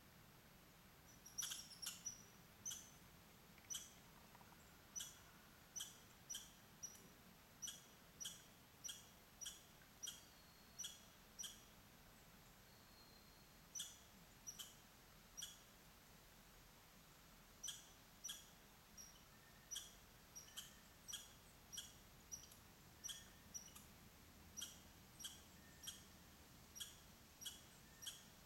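A small animal's short, sharp chirp call, repeated over and over about one and a half times a second, with two brief pauses along the way.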